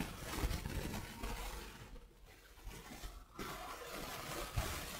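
Faint room tone with a few soft low thumps.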